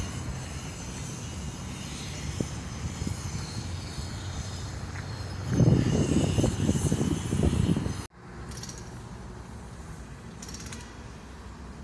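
Road and engine noise of a moving vehicle with wind buffeting the microphone, the gusts loudest for a couple of seconds past the middle. It cuts off abruptly about eight seconds in, leaving a quieter steady outdoor noise.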